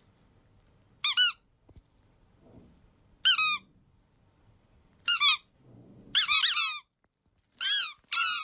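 Squeaky plush chick toy being squeezed by hand, giving about six short, high-pitched squeaks a second or two apart, each rising and falling in pitch.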